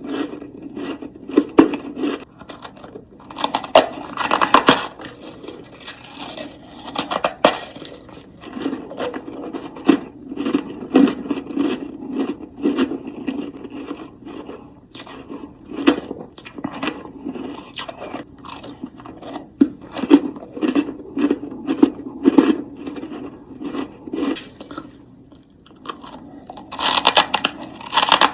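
Close-miked crunching and chewing of powdery freezer frost: irregular crisp crunches, one after another, with louder clusters a few seconds in and near the end.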